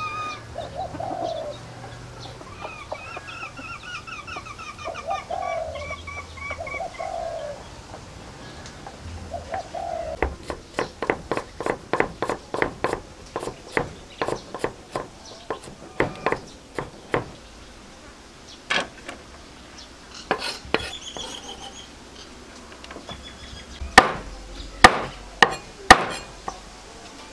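Birds calling, a low repeated call and a higher trill. Then a cleaver chops galangal into strips on a wooden chopping board in quick, even strokes, about three a second. Near the end come four heavy cleaver chops through chicken feet, the loudest sounds.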